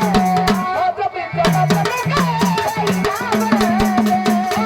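Marathi devotional folk music from a gondhal ensemble. A drum plays a steady pattern of strokes that bend down in pitch, with fast metallic ticking from small cymbals or rattles and a wavering melody line over the top.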